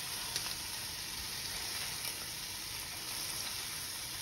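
Ground beef, thawing from a frozen block, sizzling in a stainless steel skillet, with a few light clicks as a Mix 'N Chop tool presses into the meat.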